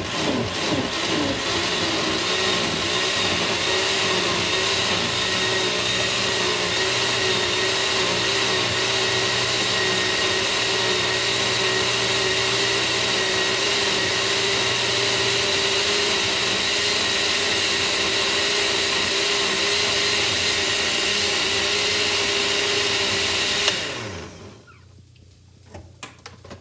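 Electric soup blender running at full speed, pureeing cooked asparagus and spinach soup: a loud, steady motor whine that settles in pitch in the first second, runs on evenly, then switches off about 24 seconds in and winds down.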